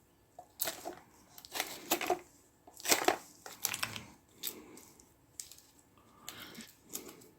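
Packaging being handled and unwrapped: a series of short rustles, crinkles and light knocks as wrapped furnace accessories are pulled out.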